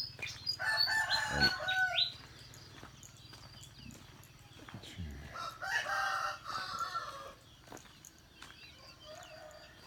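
Rooster crowing twice, each crow lasting about two seconds, with a fainter call near the end.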